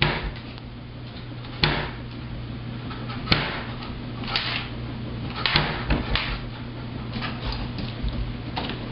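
A whole watermelon knocking and thudding as a dog paws and noses it across a vinyl kitchen floor and bumps it into wooden cabinet doors. The knocks are irregular, about nine of them, some in quick pairs.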